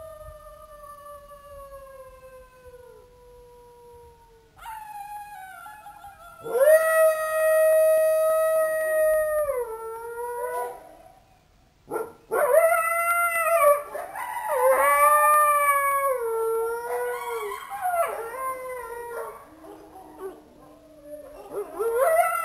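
Jackals howling: a long falling howl at first, then longer held howls from about six seconds in, followed by a run of wavering howls and yips.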